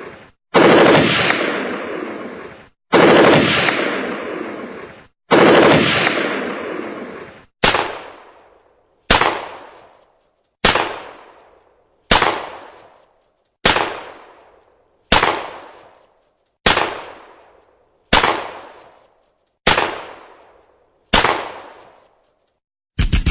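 Gunshots fired one at a time: first three heavy shots about two and a half seconds apart, each with a long echoing tail, then ten sharper single shots about every second and a half, each echoing away within a second. Just before the end a rapid burst of automatic fire starts.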